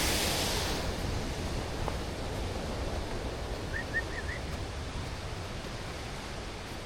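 Steady rush of flowing water, its bright hiss dropping away about a second in and leaving a softer, lower rush. About four seconds in come four short, quick rising chirps.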